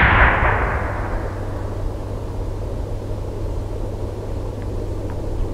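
The rushing tail of a high-voltage circuit breaker's operation, fading away over about a second and a half. Under it runs a steady low hum.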